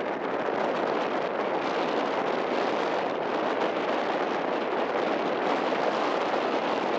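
Eurofighter Typhoon's twin EJ200 turbofan engines at approach power as the jet comes in to land, a steady, even jet roar.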